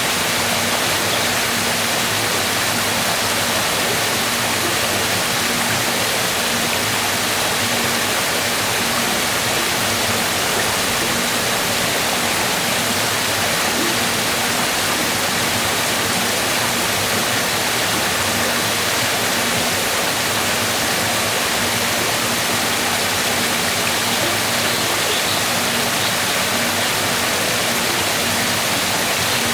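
Waterfall: water falling steadily, an even unbroken noise with no change in level.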